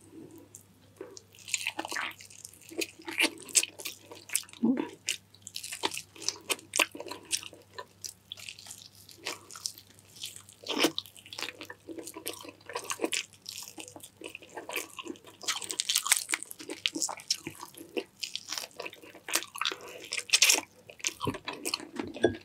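Close-up eating sounds: wet chewing and mouth smacks of saucy chicken stewed in coconut milk with rice, in many short, irregular clicks. A faint steady low hum runs underneath.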